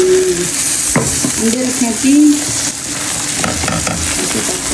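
Egg and chopped-vegetable mixture sizzling in oil in a non-stick frying pan, with a spatula scraping and tapping against the pan; a sharp tap about a second in, and a brief pitched sound about two seconds in.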